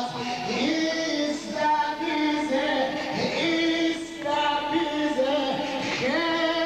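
A single voice singing a slow melody of long held notes that step up and down with small ornaments.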